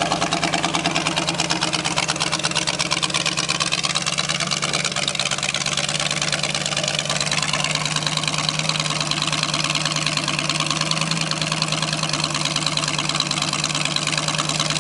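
350 small-block Chevy V8, swapped into a riding lawn mower, idling steadily.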